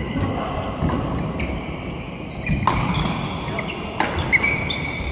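Badminton rally: rackets striking the shuttlecock in sharp cracks, the loudest two about two-thirds of the way in and near the end, with short high squeaks of court shoes on the floor between them.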